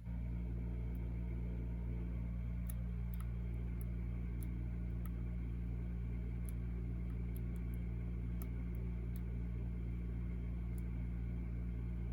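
Faint, irregular small clicks of a hook pick and tension wrench working the pins of a Medeco Biaxial cam lock, over a steady low hum.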